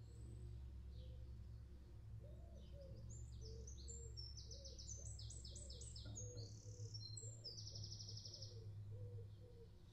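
A songbird sings a fast, loud song of rapid trills and quick repeated notes, starting about two seconds in and ending shortly before the close. Beneath it runs a quiet, low, sustained bowed cello tone with soft repeated higher notes.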